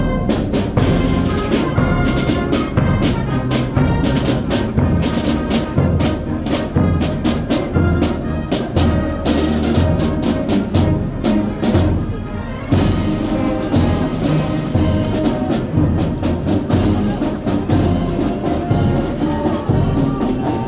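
Navy marching band playing a march: brass led by sousaphones over a steady bass drum beat.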